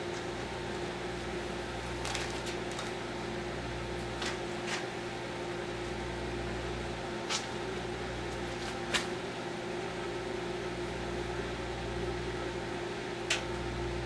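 Microwave oven running with a steady hum while heating an egg wrapped in packing tape, with scattered sharp ticks over the hum.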